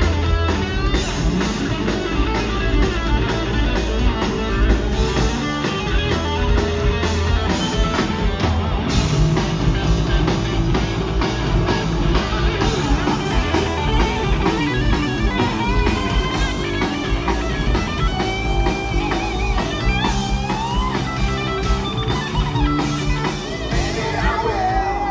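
Live rock trio playing an instrumental passage: electric guitar, electric bass and drum kit, with the lead guitar playing sliding, bent notes in the second half.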